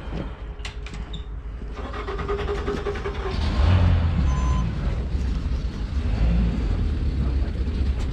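Ford 460 big-block V8 pickup engine running under load while pulling a boat trailer. Its low rumble grows louder about two seconds in and then holds steady.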